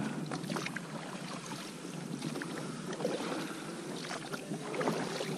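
Water splashing and lapping around an inflatable rowboat as it is rowed in toward the bank, with a few light knocks.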